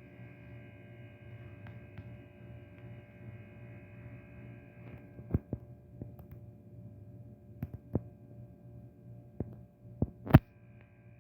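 Steady electrical hum, with a string of sharp, quick computer mouse clicks in the second half, the loudest one near the end.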